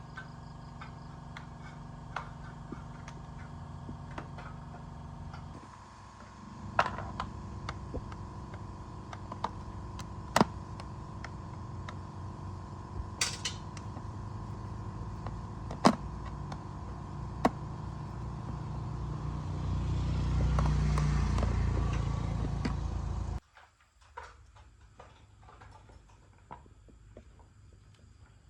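A motor running steadily with sharp metallic clicks here and there. It grows louder from about twenty seconds in and cuts off suddenly a few seconds later.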